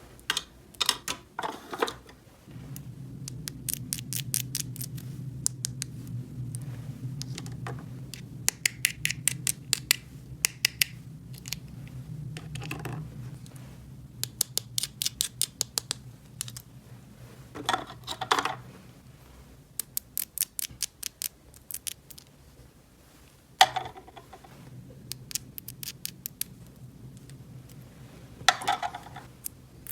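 Small plastic toy pieces being handled: quick runs of light clicking and scraping, with a few louder knocks.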